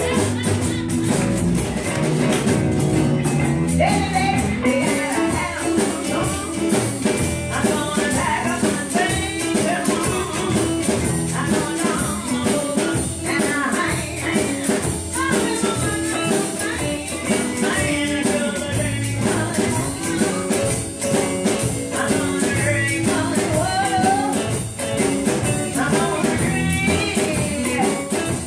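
Live blues band playing: electric and acoustic guitars over a drum kit, with a woman singing.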